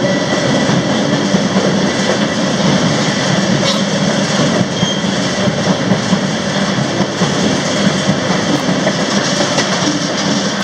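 A moving freight train, a steady loud rumble and rattle of its wheels and cars on the rails.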